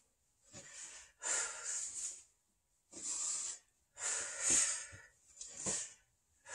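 A man breathing out with effort while doing ab crunches: about five hissing breaths, each under a second, with short silences between.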